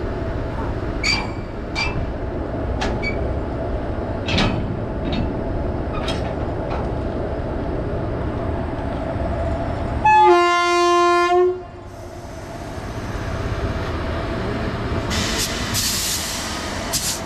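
Indian Railways WAG-7 electric locomotive pair rumbling and humming as it comes in slowly, with a few sharp metallic clanks in the first few seconds. About ten seconds in, the locomotive's horn sounds one loud blast of about a second and a half; afterwards the rumble builds again as the locomotives draw near, with bursts of hiss near the end.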